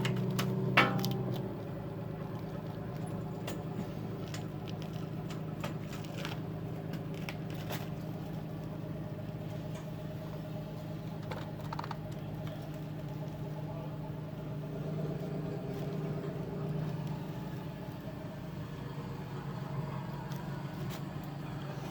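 A steady low mechanical hum, a little louder for the first second and a half, with scattered light clicks and taps of hand work.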